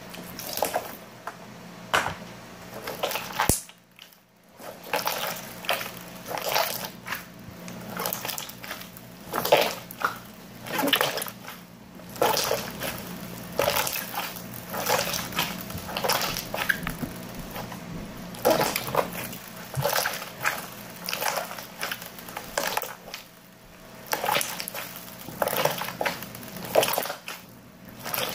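Pink slime being squeezed, kneaded and pulled apart by hand, a run of short squishing noises about once a second, with a brief quiet spell about four seconds in.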